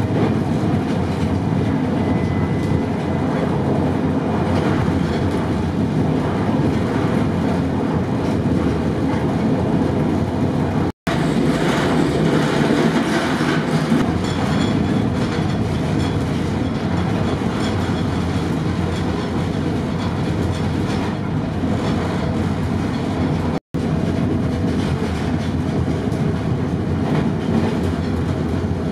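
Running noise of a passenger train at speed heard from the front cab: a steady rumble of wheels on rail. The sound cuts out for an instant twice, about a third and again about four-fifths of the way through.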